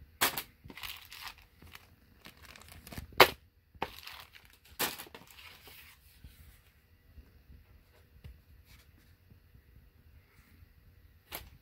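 Plastic packaging of a Mini 4WD model kit crinkling and tearing as the parts are unpacked by hand. There are bursts of crackling over the first six seconds, loudest about three seconds in, then only faint rustling, and a brief crackle near the end.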